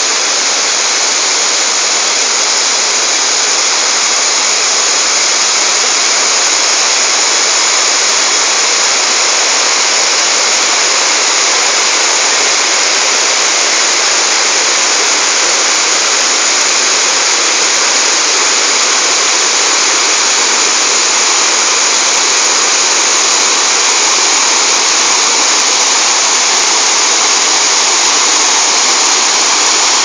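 Waterfall and stream rushing over rocks, a steady loud noise of running water that grows slightly louder.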